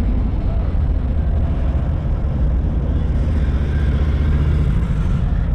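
Steady low rumble of a vehicle being driven in slow city traffic.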